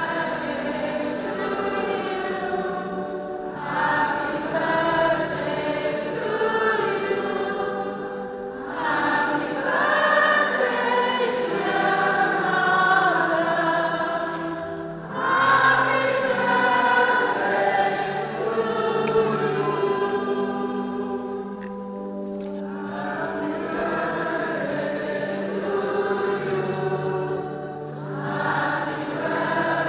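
Choir singing in long sustained phrases, with short breaks between phrases.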